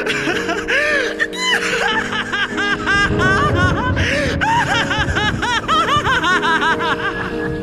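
A man laughing at length in a long run of quick 'ha' peals, each one rising and falling in pitch, over instrumental music.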